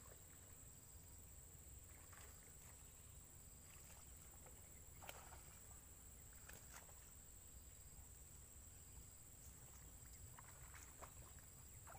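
Near silence: faint outdoor ambience with a steady low rumble, a thin high whine and a few soft, scattered ticks.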